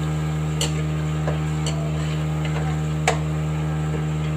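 A steady low hum, with a few sharp clicks of a metal slotted spoon knocking against an aluminium kadai as ginger-garlic paste is stirred in oil; the loudest click comes about three seconds in.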